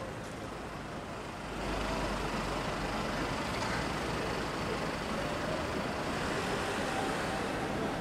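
Steady road traffic noise that grows louder about a second and a half in, then holds.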